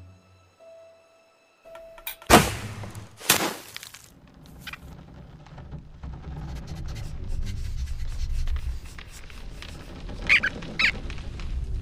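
Animated-film soundtrack: two sharp, loud whooshing hits a little over two and three seconds in, then a low rumble that slowly builds, with two short high squeaks near the end.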